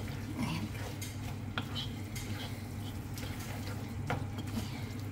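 Wooden spatula stirring and tossing rice noodles in a steel wok, with a few short scrapes and knocks against the metal over a steady low hum.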